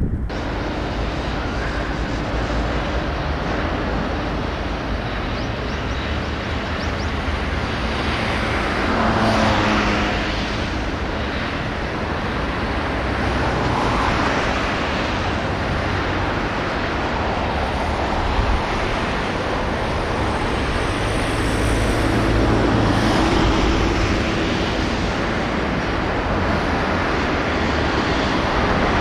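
Steady outdoor road-traffic noise, with vehicles passing and the sound swelling briefly about a third of the way in and again later.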